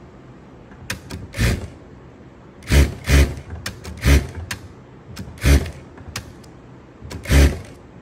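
Industrial single-needle lockstitch sewing machine stitching through thick padded material in short bursts: about six quick runs of a fraction of a second each, with light clicks between them as the work is turned along a curve.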